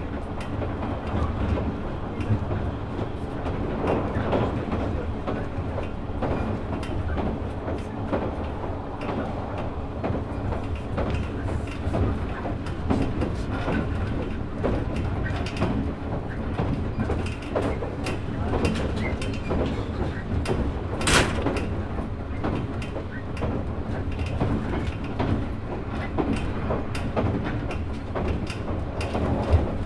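Interior running sound of a 183-series electric train's motor car (MoHa 182): steady wheel rumble and hum from the MT54 traction motors, with irregular clicks from the rails and one sharp, loud clank about 21 seconds in.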